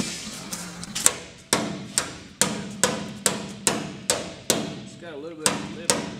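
Ball-peen hammer striking the sheet-steel firewall of a 1957 Chevy Bel Air body. Steady blows, about two a second from about a second in, each with a short metallic ring. The hammering is tapping the tweaked firewall into line with the new floor pan.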